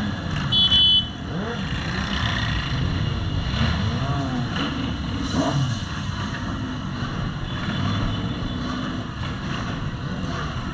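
Motorcycle engines running and revving in a passing ride, their pitch rising and falling again and again. A short, loud horn blast comes about half a second in.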